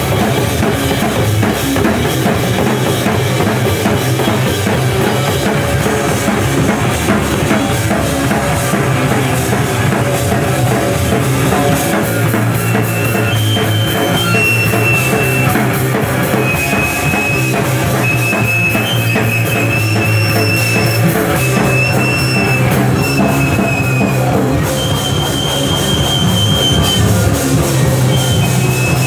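Punk band playing live and loud, with distorted guitars and a drum kit going without a break. Some high, held notes ring out over it from about halfway through.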